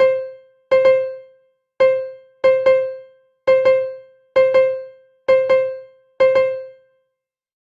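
Music: a keyboard with an electric-piano sound repeating one high note, mostly in quick pairs of strikes, each note dying away fast. It stops about seven seconds in.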